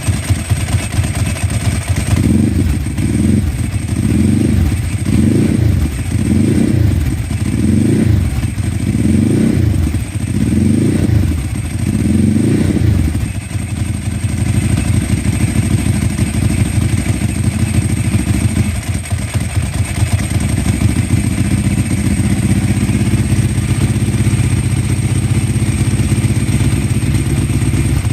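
Ducati 999S L-twin engine through Termignoni exhausts, revved in a run of short throttle blips about every second and a half. About halfway through it settles into a steady idle.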